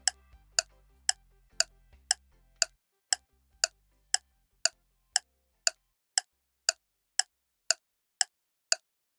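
Ticking clock sound effect keeping time for a quiz countdown timer, a sharp tick about twice a second. Faint low music fades out during the first three seconds.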